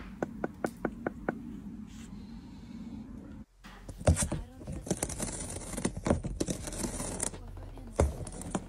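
A finger tapping on the thin ice covering a tub of water, a quick run of about seven sharp clicks. Then a cat gnaws at the edge of a cardboard box: dense crunchy clicking and scraping, with a sharp knock about four seconds in and another near the end.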